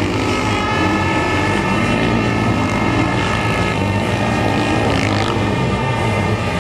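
Sidecar motocross racing engines running hard at high revs: a loud, steady engine drone whose pitch shifts about four seconds in.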